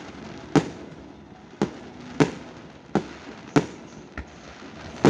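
Aerial firework salutes bursting overhead: a string of six or seven sharp, loud bangs less than a second apart, each with a brief echoing tail.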